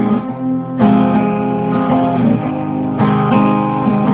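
Acoustic guitar strumming chords in an instrumental break of a song, with a fresh chord struck about a second in and again about three seconds in.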